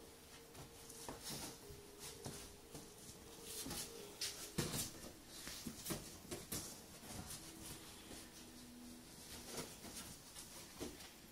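Faint, scattered clicks and rustles of springer spaniels moving about on a dog bed and in a basket. A thin, steady tone is heard in the first few seconds and again later, changing pitch in steps.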